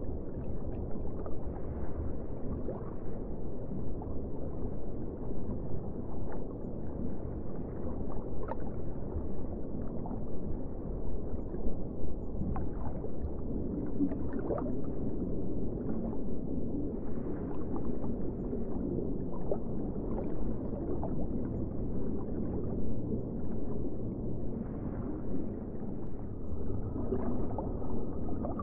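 Underwater ambience: a steady, muffled low rush of water with scattered short pops, and a faint held tone near the end.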